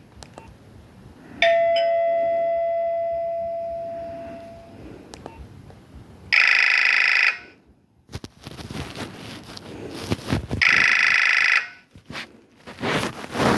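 Nokia 1209 mobile phone playing its built-in alert tones through its small speaker: a single bell-like chime that rings out and fades over about three seconds, then two loud, harsh electronic tones about a second long, some four seconds apart.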